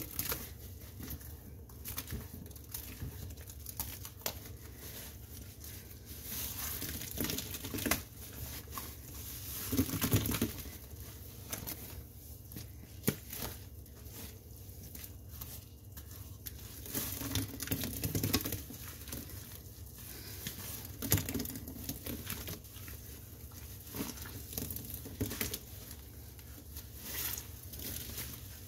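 A soapy sponge being squeezed by hand, giving many small irregular wet clicks and crackles. There are a few louder squeezes about a third and about two-thirds of the way through.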